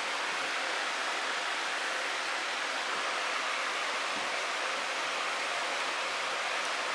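A steady, even rushing hiss that does not change, with no breaks or distinct knocks in it.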